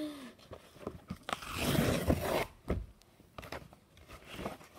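Cardboard mailer being torn open and handled: a loud ripping, crunching rustle about a second and a half in that lasts about a second, then scattered scrapes and taps of the cardboard.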